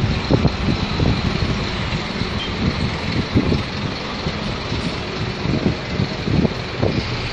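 Street traffic: vehicle engines running steadily, with a large coach's engine close by at first, and irregular low gusts of wind buffeting the microphone.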